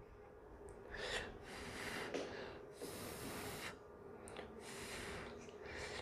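A man breathing: about five soft puffs of air, the longest about three seconds in.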